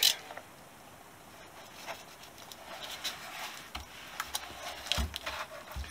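Handling noise from fitting self-adhesive foam weather strip around a plastic heater vent duct: light scattered clicks and rustles of foam and plastic under the fingers, with a few soft knocks in the second half.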